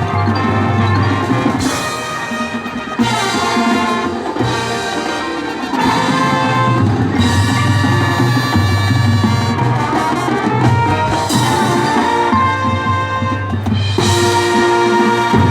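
Marching band playing a loud passage of brass chords over drums and percussion, easing off a little in the middle and building back up.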